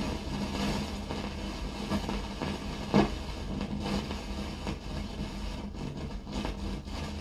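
Ei Melos Luxe radio-gramophone's speaker giving out static hiss over a steady low hum, with scattered crackles (the sharpest about three seconds in), as the tuning knob is turned between stations.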